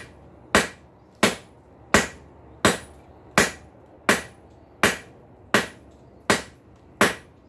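Blacksmith's hand hammer striking a red-hot bar of high-carbon steel on an anvil, about ten steady blows spaced roughly 0.7 seconds apart, each with a short ring. The bar is being hammered square from the big end.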